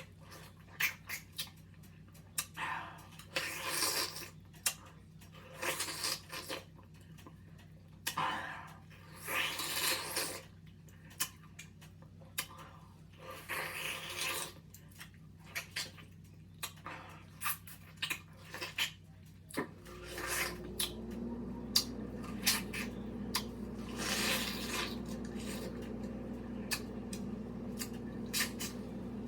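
Close-up mouth sounds of someone eating a mango: wet clicks, bites and slurps of juice. About two-thirds of the way through, a steady low hum starts underneath and keeps going.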